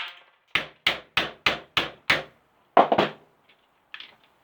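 Brick hammer striking an electric shower unit: six quick blows about three a second, then one heavier, louder blow about three seconds in, followed by a few small clatters.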